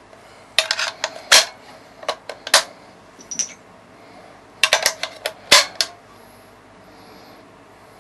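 Inert .303 rounds being pressed into the top of a Bren gun's curved box magazine: sharp metallic clicks and clacks in bunches, about a second in, again around two and a half seconds in, and around five seconds in.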